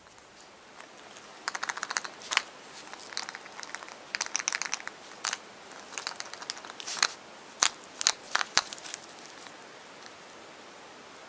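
Foil wrapper of a chocolate surprise egg crinkling and tearing as it is peeled off, in irregular crackly bursts that stop about nine seconds in.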